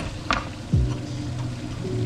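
Background music with a deep bass beat: a falling bass hit about once every second and a half over sustained low tones. Two sharp clicks sound within the first half second.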